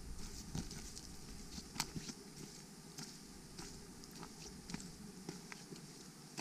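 Footsteps crunching on a stony path strewn with dry leaves: faint, irregular crunches and clicks at a walking pace.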